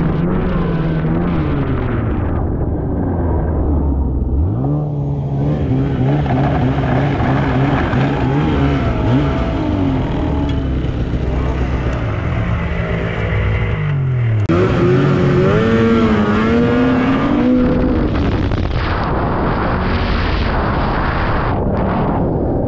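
Two-stroke snowmobile engine under way, its pitch rising and falling with the throttle. The pitch jumps up about a fifth of the way in, then drops sharply and climbs again about two-thirds of the way through.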